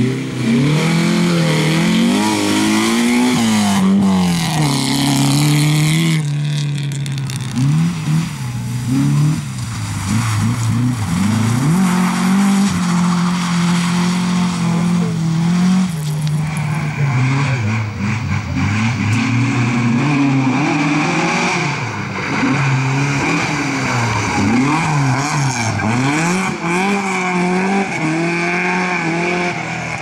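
Rally car engines driven hard, one car after another, the pitch climbing and dropping again and again with gear changes and lifts off the throttle.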